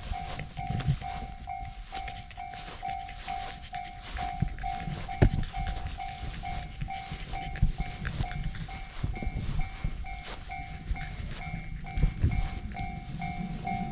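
Japanese railroad crossing's electronic warning bell ringing in a steady rapid ding-ding rhythm, signalling that a train is coming, over a low rumble. A single thump about five seconds in.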